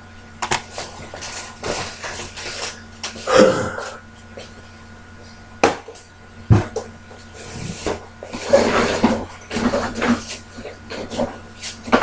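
Scattered knocks, clicks and clatter of objects being handled and set down, with some rustling, over a steady faint electrical hum.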